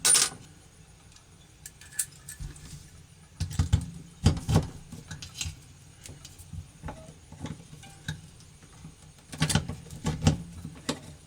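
Hand rivet gun setting pop rivets in metal: scattered sharp metallic clicks and clinks, the loudest right at the start and in clusters about four seconds in and near the end.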